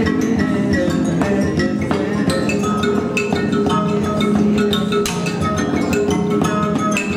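Music of tuned percussion: many short, ringing pitched notes, struck or plucked in quick succession, over a dense, steady lower layer of sustained tones.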